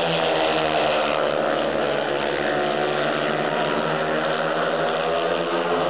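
Four speedway motorcycles racing, their 500 cc single-cylinder methanol engines running flat out together in a dense, steady drone. Several engine notes overlap and waver slightly in pitch as the riders lap the track.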